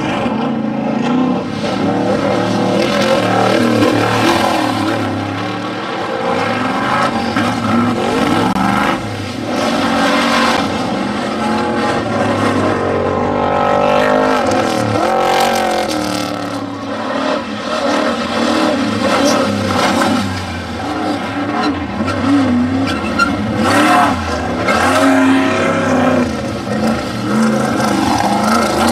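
Off-road desert race vehicles' engines running hard and revving, the pitch rising and falling as they accelerate and pass.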